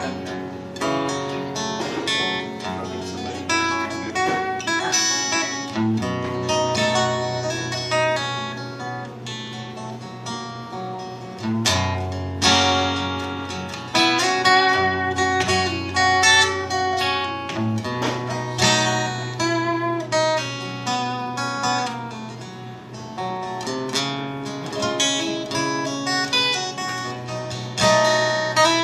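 Steel-string acoustic guitar played solo, an instrumental passage of strummed chords that change every few seconds, without singing.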